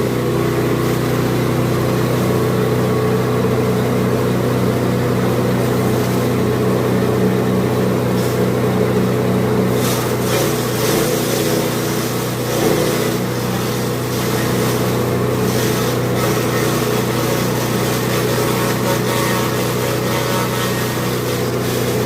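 Engine-driven grass chopper (chaff cutter) running steadily at constant speed, with a steady engine hum.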